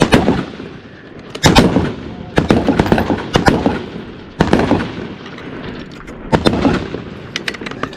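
Rifle gunshots, several in close succession, some coming in quick pairs, each with a short echo.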